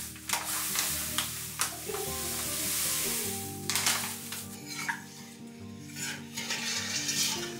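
Stirring and clinking in a saucepan while making cordial syrup, with a hissing spell about two to three seconds in, over soft background music.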